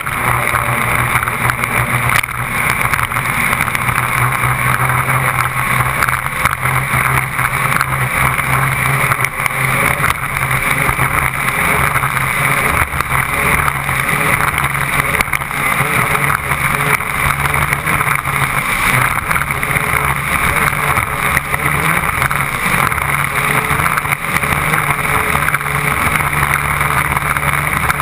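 Raceboat's twin Yanmar BY260 six-cylinder diesels running steadily at high speed through surface drives, a constant low engine drone under a loud rush of wind and spray from the wake.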